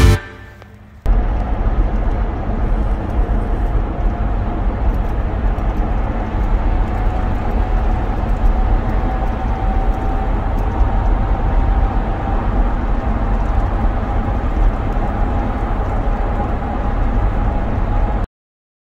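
Car running, heard from inside the cabin: a steady low rumble and road hiss with a faint hum that rises slowly in pitch. It cuts off suddenly near the end.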